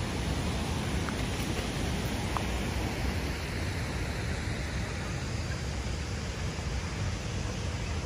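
Steady rushing of river water.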